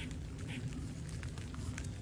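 Squirrel calling with short, noisy calls: one about half a second in, followed by a few faint clicks, over a steady low rumble.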